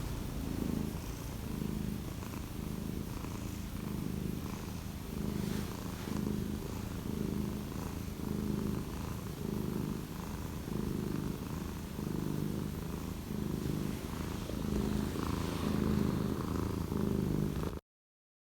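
Cat purring close up, a low continuous rumble that swells and fades with each breath, then cuts off suddenly near the end.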